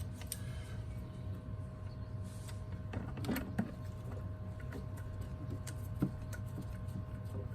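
A few light clicks and knocks of a screw and hand tool being worked by hand, a couple of them a little past the middle and a sharper one about six seconds in, over a steady low background hum.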